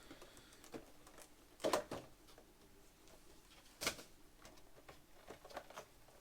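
Light clicks and knocks of a hard plastic protective figure case being handled and opened, with two louder clicks, one about one and a half seconds in and another about four seconds in.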